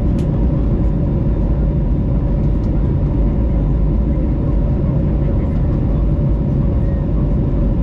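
Airbus A321neo's Pratt & Whitney PW1100G geared turbofan engines and airflow at climb power, heard inside the cabin: a steady deep rumble with an even hum.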